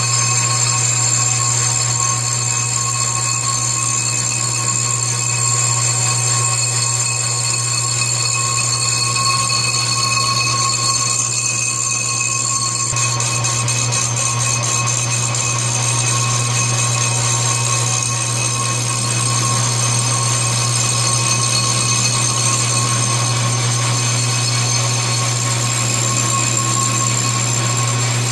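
Globe milling adapter and its drive running steadily while the tool bit takes light cuts off a 1964 Harley-Davidson brake drum's cooling fins: a constant low hum under several steady high-pitched whines, with a short lull in the middle range just before the middle.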